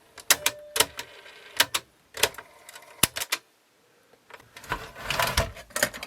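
Plastic cassette door of a Sony TC-WE305 dual tape deck being worked by hand: a series of sharp clicks and snaps, then a denser rattling clatter near the end. The door is noisy in operation, the fault about to be fixed.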